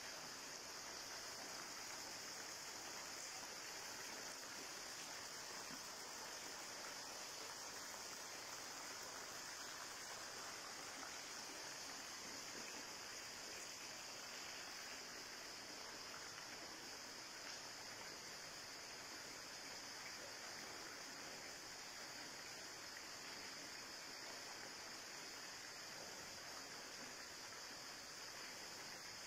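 Faint insect chorus: an even, high-pitched buzz that holds steady throughout, over a soft background hiss.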